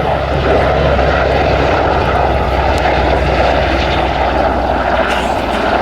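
Royal Navy AgustaWestland AW101 Merlin helicopter in display flight: its three turboshaft engines and rotors make a loud, steady din, a deep rotor throb under a broad turbine rush.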